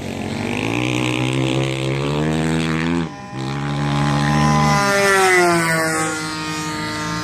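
Single-cylinder two-stroke DLE-20 gas engine of a GP Big Stick 60 RC plane running in flight. The sound dips briefly about three seconds in, then its pitch slides down around five seconds in.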